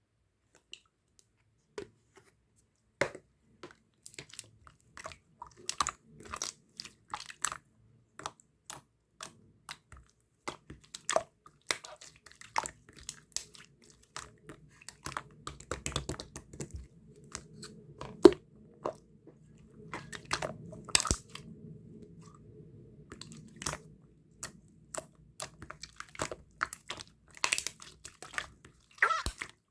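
Slime being squished and mixed by hand, with irregular sticky clicks and pops.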